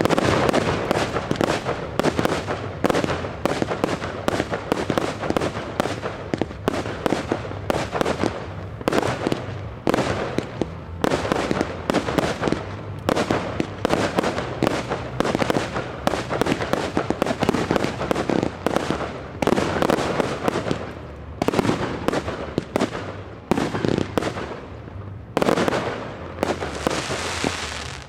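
Professional aerial fireworks display: shells bursting in rapid succession, several sharp bangs a second, with a few brief lulls.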